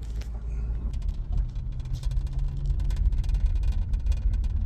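Car cabin rumble while driving slowly over a rough dirt mountain road, with tyres crunching on gravel and stones. The small crackling knocks become busier about two seconds in.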